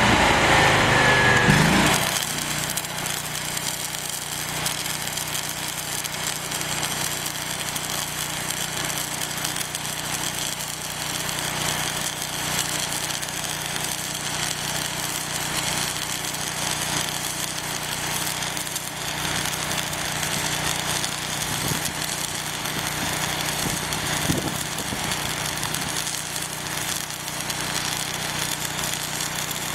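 Electric arc welding on structural steel: the arc crackles and hisses steadily, with a faint steady hum underneath. A louder sound whose pitch falls opens the first two seconds and then cuts off.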